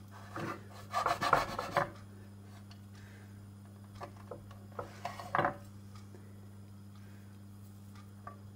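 Kitchen knife scraping and cutting along a vanilla pod on a wooden chopping board. It comes in short rasping strokes: a brief one half a second in, the loudest stretch about a second in, and more between four and five and a half seconds in, over a steady low hum.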